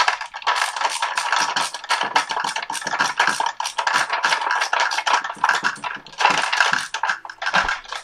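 Hand screwdriver turning screws into a plastic recessed outlet box: a fast, continuous run of small clicks and scrapes as the screws are tightened.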